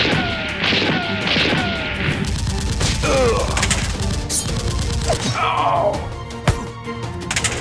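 Background music with a run of gunfire sound effects in the first two seconds, one shot about every 0.7 seconds, each with a short falling tone. Near the end comes one sharp bang.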